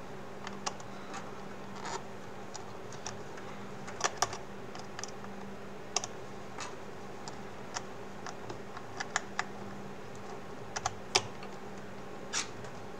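Irregular small clicks and taps of fingers handling the plastic hinge parts of a VR headset, over a faint steady hum.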